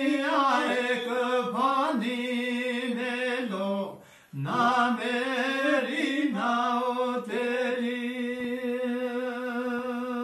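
A man chanting unaccompanied in long ornamented phrases that glide up and down, with a short breath about four seconds in, then holding one long steady note.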